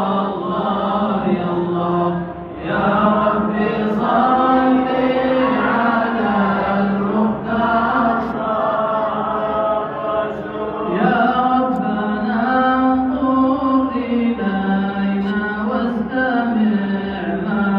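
A man chanting an Arabic devotional nasheed, a salawat asking blessings on the Prophet Muhammad, in long melodic phrases. There are short pauses for breath about two and a half seconds in and again about eleven seconds in.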